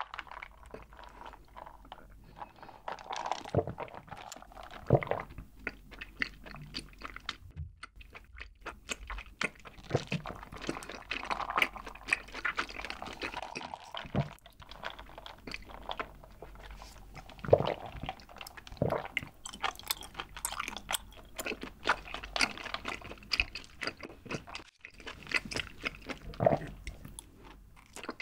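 Close-miked mouth sounds of sipping bubble milk tea through a wide straw and chewing the tapioca pearls: irregular soft clicks, with a few louder ones.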